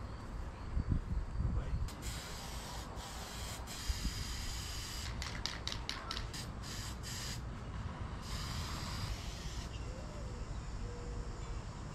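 Aerosol can of spray-on bedliner hissing in short bursts and longer passes: several quick squirts and then sustained spraying. A low wind rumble runs underneath.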